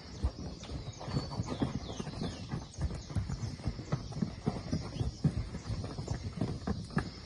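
Livestock hooves stepping and shuffling: many irregular thuds and knocks, several a second. Faint high chirps of birds run above them.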